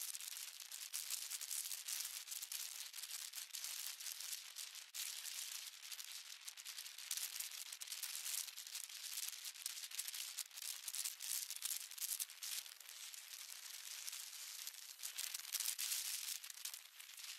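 Faint, crackling hiss of wind buffeting the microphone of a camera moving at speed.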